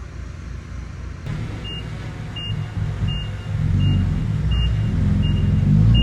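Heavy diesel construction machine running with a low rumble, its reversing alarm beeping steadily about every 0.7 seconds from about a second in; the engine grows louder about halfway through.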